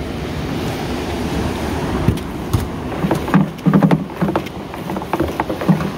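Steady wind and sea noise on a small open fishing boat, joined about halfway through by a run of short knocks and thumps.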